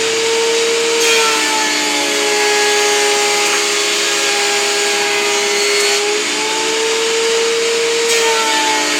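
WEN 6552 13-inch three-blade benchtop planer running, planing 2x4 boards, together with a shop vacuum pulling off the chips. The steady, loud motor whine dips and rises in pitch a few times as the load changes.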